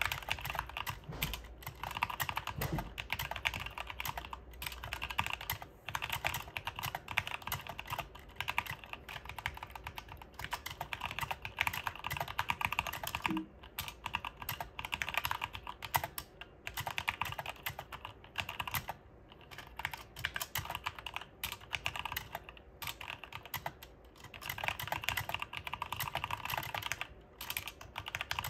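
Steady, fast typing on a Drevo Excalibur 75% mechanical keyboard with Cherry MX switches and a full metal case: a continuous patter of key clicks, with only brief pauses now and then.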